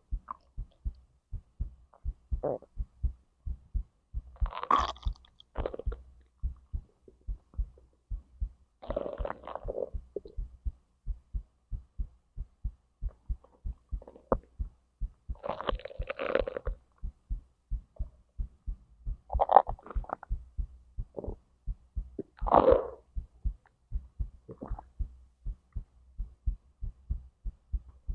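A person's heartbeat thumps steadily and low throughout, while stomach and intestinal gurgles break in every few seconds. The longest and loudest gurgles come about a third and two thirds of the way through, and again near the end.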